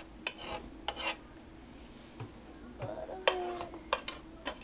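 A metal utensil scraping and tapping cooked rice out of a nonstick pot into plastic bowls: a few short scrapes and clinks with quiet gaps between them.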